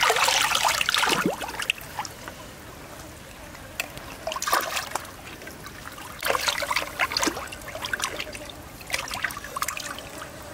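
Water splashing as a large gutted fish is rinsed and scrubbed by hand in a shallow stream, in several bursts: the loudest right at the start, then again around four and a half, seven and nine seconds in. Between them the stream trickles steadily.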